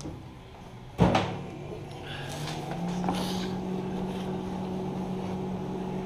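A single sharp metal clank about a second in, then a steady low machine hum that grows louder and holds.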